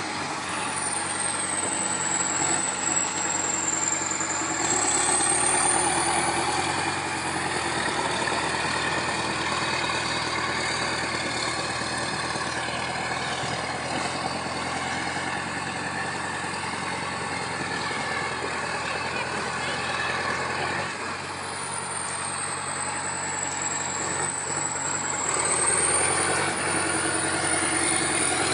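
Heavy diesel engine running steadily, with a high whistle that falls and rises again twice.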